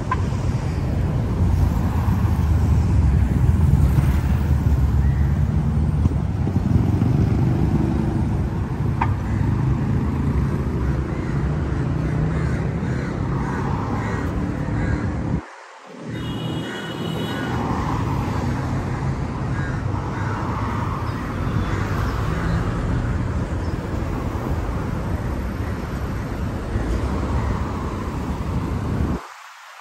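Road traffic, cars passing on a multi-lane city street, under a heavy low rumble of wind on the microphone. The rumble cuts out abruptly for about a second halfway through and again near the end, and a brief high tone sounds just after the first drop-out.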